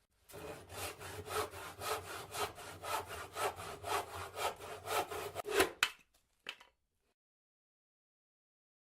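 Rapid back-and-forth sawing strokes, about four a second, stopping a little before six seconds in, followed by a couple of faint clicks.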